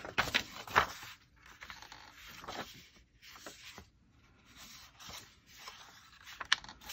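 Paper and journal pages being handled: short rustling, rubbing and scraping sounds with a few sharp taps, the loudest about a second in and another near the end.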